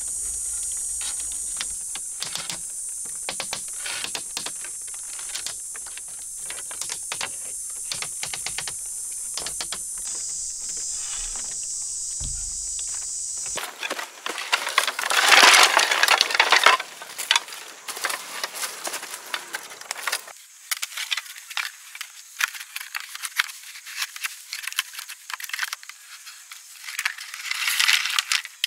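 Bamboo poles and strips clacking and knocking against each other as they are handled and fitted, with a steady high-pitched buzz behind them in the first half. About halfway through the sound changes to louder scraping and rustling, strongest a couple of seconds later and again near the end.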